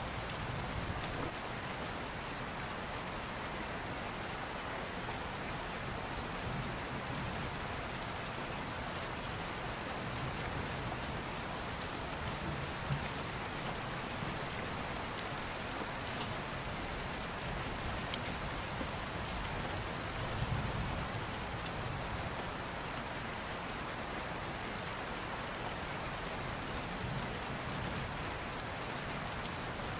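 Steady rain, an even hiss, with a few soft low rumbles swelling and fading and a couple of faint clicks.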